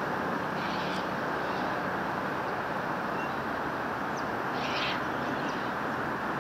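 Steady rushing outdoor noise of a distant electric suburban train running along an elevated line, with two short high bird calls about half a second in and again near five seconds in.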